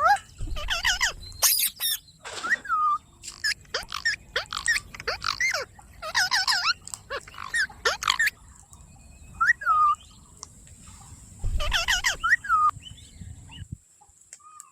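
Pet ringneck parrot calling: clusters of quick, shrill repeated notes with short falling calls in between, stopping near the end.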